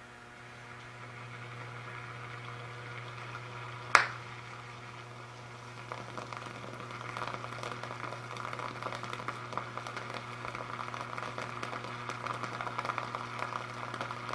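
Water boiling around a CRT electron gun as mains current passes through it from a variac. A steady low hum comes on at the start, a single sharp pop about four seconds in, then dense crackling, fizzing bubbling that builds as the salted water conducts more.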